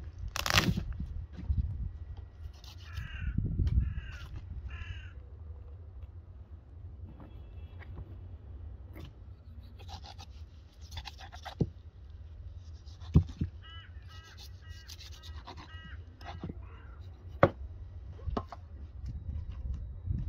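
Crows cawing in short series of calls, a few seconds in and again in the middle, over sharp knocks and knife cuts on a lamb carcass on a table. A steady low wind rumble sits on the microphone.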